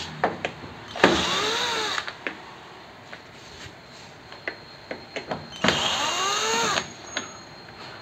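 Electric screwdriver motor running in two short bursts of about a second each, its pitch rising and then falling, as it backs out the control-panel screws of a washing machine. Light clicks and taps come between the bursts.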